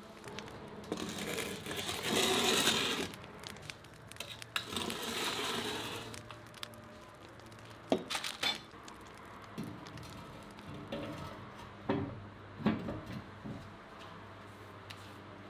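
Handling noises at a brick oven: two stretches of rustling and scraping, then several separate sharp knocks and clanks, a couple of them close together near the end.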